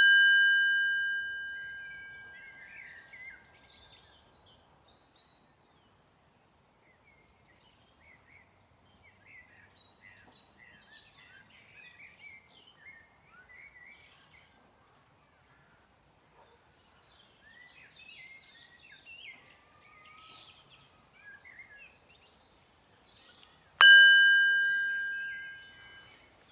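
Buddhist singing bowl struck with a wooden mallet: its ring of several clear tones fades over about three seconds. Birds then chirp faintly. Near the end the bowl is struck again and rings on.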